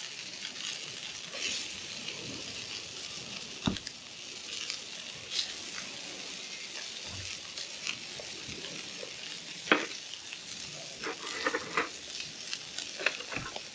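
Kahawai fillets sizzling in hot oil in a frying pan on a Trangia 27 alcohol stove, a steady hiss, with a few sharp clicks of metal tongs against the pan.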